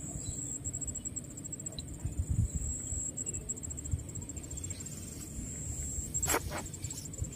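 Insects trilling steadily, a high, finely pulsing buzz, over a low rumble of wind or handling noise on the microphone that swells a couple of seconds in. A brief sharp double sound comes about six seconds in.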